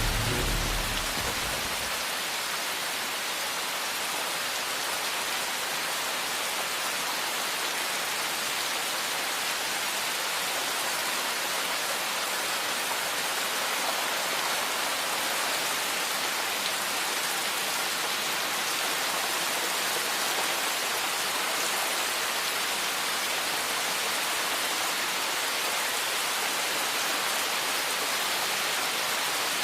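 Steady rain falling, an even hiss that does not change. Low tones of music die away in the first two seconds.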